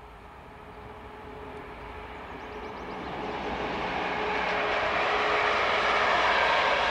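PKP EP09 electric locomotive and its intercity passenger coaches approaching and passing, the rolling noise of wheels on rails growing steadily louder as the train goes by. A thin steady hum runs under it until about a second before the end.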